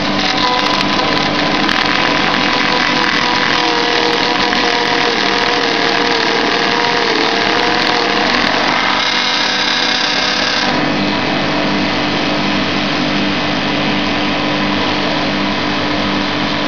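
A coir brush trimming machine running with a loud, steady whir. For about the first ten seconds a wavering whine rides over it; then it settles into a steady hum.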